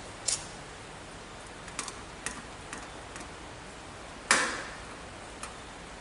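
Small clicks and taps from hands working wire and a resistor lead into the plastic terminal block of a smoke detector base, with one louder knock about four seconds in.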